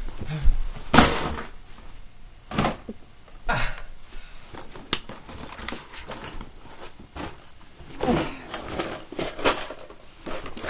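Irregular sharp knocks and rustles of a body jerking on a bed during a seizure, together with handling of the camera held close by. About seven separate hits are spread unevenly over ten seconds.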